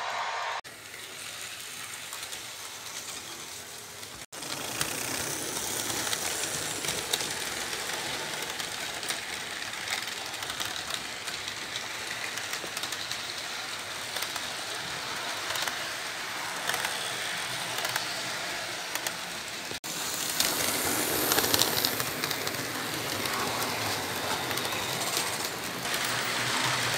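HO-scale model intermodal train of double-stack container cars rolling past on track, a steady rushing clatter of small wheels on rail with many fine ticks. The sound breaks off abruptly twice and resumes.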